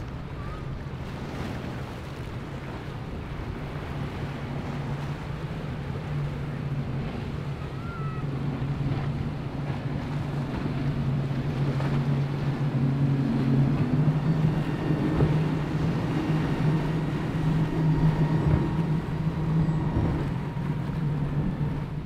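Motorboat engines droning steadily, with a low hum that grows louder in the second half, over the rush of wake water and wind buffeting the microphone.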